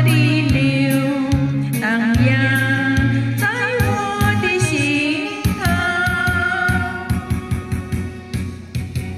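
Closing bars of a Mandarin ballad: a melody with vibrato over held bass notes, which gives way about halfway through to short plucked notes as the music fades out.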